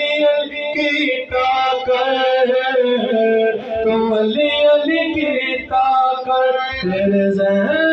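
A man singing a Punjabi manqabat (Sufi devotional song) solo into a microphone, with long held notes that slide between pitches and brief breaks for breath.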